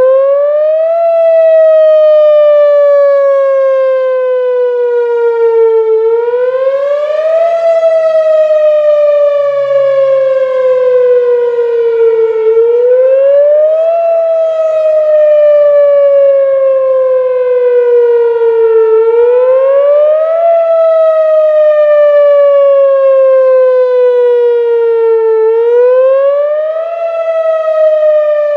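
A siren wailing in a steady repeating cycle: the pitch climbs quickly for about a second, then falls slowly for about five, about every six and a half seconds.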